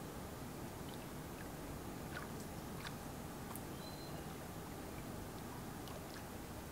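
Small waves on a loch lapping at the shore, a steady low splashing and gurgling with scattered small drips and ticks. A brief high note sounds about four seconds in.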